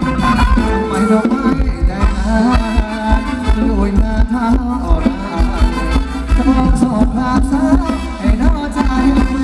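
Thai ramwong dance band music with a steady beat and a wavering melody line over a constant bass.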